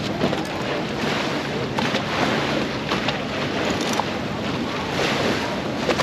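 Waterfront street ambience: a steady wash of wind on the microphone and water and boat noise, with faint scattered voices of passers-by.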